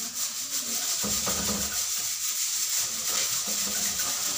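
A broom brushed quickly back and forth against a ventilation grille, sweeping off dust: a steady, dense, dry scratching rustle.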